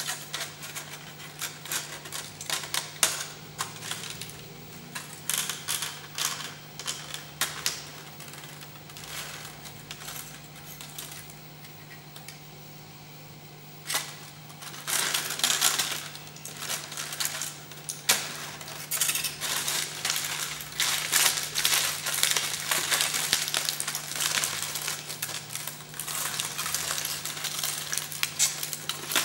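Aluminium foil crinkled and crumpled by hand: irregular crackling, sparse at first, then denser and louder from about halfway through. A steady low hum runs underneath.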